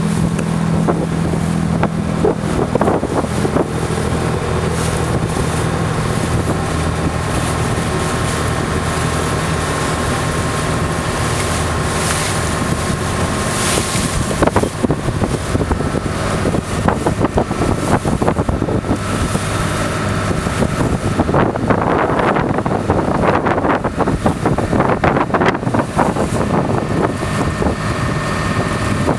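A boat's engine running steadily under way, with water rushing past and wind buffeting the microphone in gusts, heaviest about three quarters of the way through.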